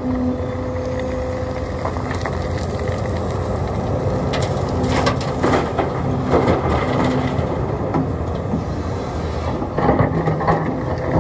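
Sumitomo SH300 excavator's diesel engine running steadily under work, with bursts of stones clattering and knocking about halfway through and again near the end as rocky material is handled.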